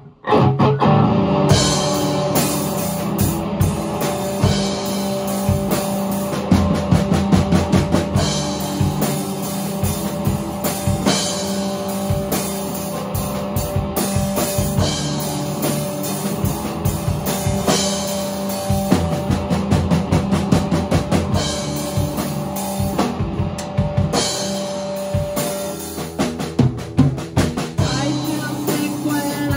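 Live rock band playing an instrumental passage on electric guitar, electric bass and drum kit, the drums keeping a steady beat.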